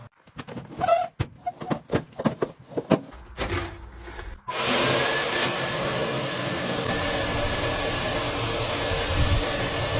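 Several seconds of irregular knocks and clatter. Then, about four and a half seconds in, a motor starts abruptly and runs on with a steady, loud rush of air, as from a vent-cleaning vacuum or blower.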